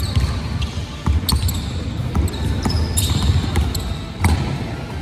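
A basketball dribbled on a hardwood gym floor: a series of irregular bounces as the player handles the ball and drives, with short high squeaks from basketball shoes on the floor.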